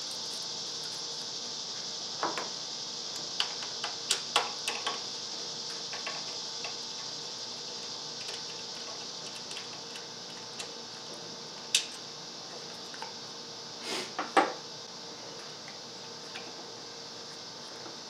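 Scattered clicks and knocks of parts and hand tools being handled on an engine as a coil-on-plug ignition coil is unplugged and removed, over a steady hiss. Several small clicks come in the first few seconds, a sharp click about two-thirds through, and a cluster of louder knocks soon after.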